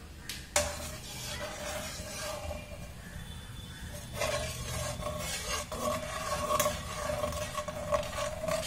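Perforated metal spatula stirring and scraping raw eggs around a metal pan to scramble them, with a sharp knock of metal on the pan a little over half a second in. The scraping grows busier about four seconds in.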